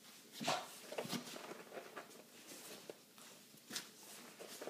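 A dog rummaging in the blanket on its bed, pawing and nosing at the fabric: irregular soft rustles and scratches, the loudest about half a second in.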